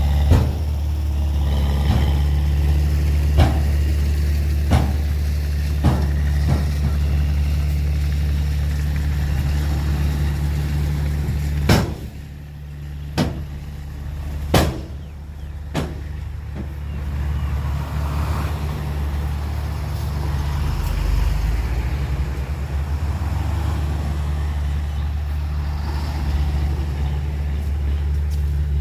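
Heavy diesel engine of earthmoving equipment running steadily with a deep hum. A series of sharp knocks cuts through it, about ten of them in the first half.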